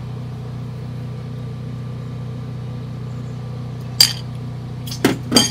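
A spoon clinking against a bowl, a sharp clink about four seconds in and two more near the end, as the last crab topping is scraped out and the bowl is set down. A steady low hum runs underneath.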